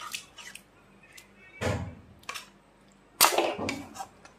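Ladle stirring and scraping through watery saag curry in a metal kadhai, heard as a few separate swishing scrapes; the loudest comes about three seconds in.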